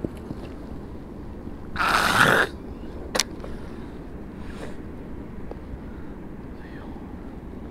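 A cast with a baitcasting rod: a short whoosh of the rod and line running off the spool about two seconds in, followed a second later by a single sharp click. Steady low wind and water noise lies underneath.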